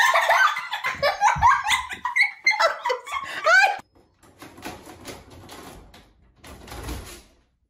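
People laughing and exclaiming loudly, cutting off suddenly after about four seconds. Then fainter rustling with a few soft knocks.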